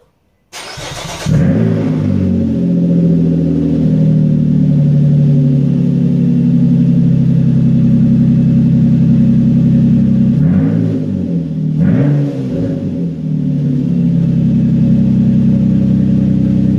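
Nissan car with a straight-pipe exhaust starting up. A brief crank, then the engine catches and idles loudly, with two short throttle blips about ten and twelve seconds in.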